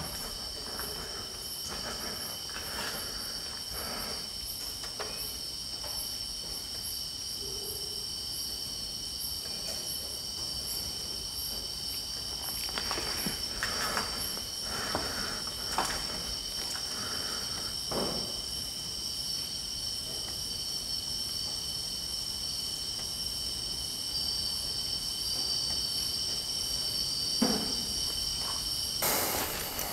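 Crickets and other insects trilling steadily at several pitches, one of them in fast pulses. Faint scattered rustles and knocks of handling run underneath, with a louder bump near the end.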